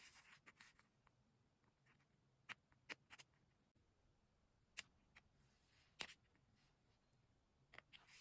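Faint handling of paper and stationery on a desk: a handful of light, separate taps and clicks with soft paper rustling between them.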